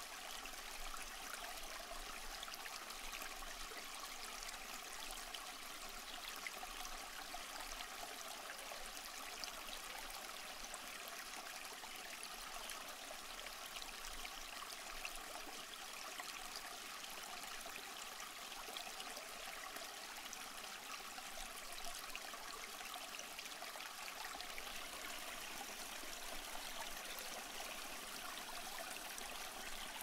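Sea water washing and trickling on a beach shore: a steady, even hiss with no distinct wave surges.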